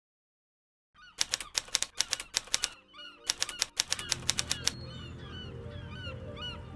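Typewriter key clicks as a sound effect: two quick runs of rapid key strikes with a short pause between them, timed to text typing onto the screen. After that, birds call repeatedly over a low steady background.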